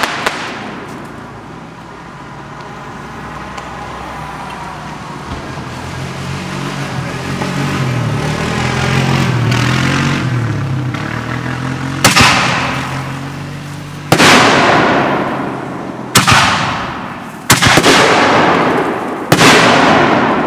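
Consumer fireworks: a swelling and fading rumble over the first ten seconds or so, then five loud bangs about two seconds apart, each trailing off in a long echo.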